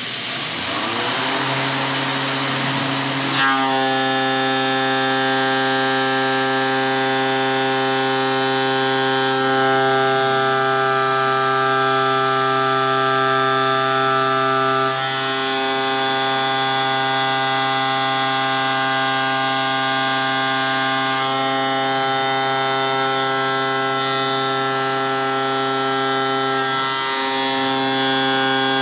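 Tormach CNC mill driving a 3/4-inch ShearHog indexable cutter as it rough-mills a metal plate under mist coolant. It starts with a hiss, and from about three seconds in the cutter sings a steady, many-toned whine, which breaks briefly twice, about halfway and near the end.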